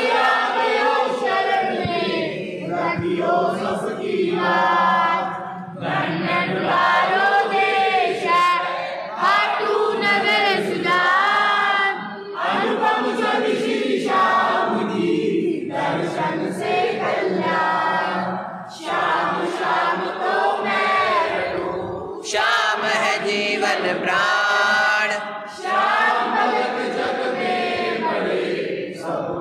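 Hindu devotional song sung by a group of voices, phrase after phrase with short pauses between lines.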